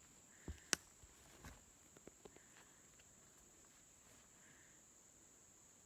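Near silence in woodland: a steady high-pitched insect drone, with a few sharp clicks in the first two and a half seconds, the loudest about three-quarters of a second in.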